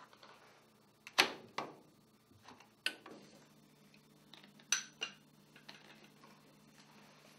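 Handling noises from a UV air purifier's lamp assembly being twisted out of its housing and set down on the floor: several sharp plastic clicks and knocks, the loudest about a second in.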